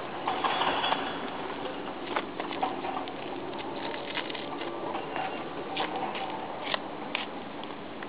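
Ostriches pecking and stepping about on dry, stony ground: scattered light clicks and scuffs, with a louder scuffle about half a second in.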